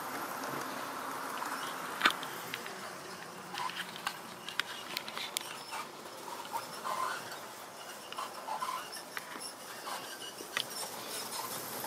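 Triang OO-gauge model train of coaches running on the track, its rumble fading over the first two seconds. About two seconds in there is a sharp click, followed by scattered light clicks and brief squeaks.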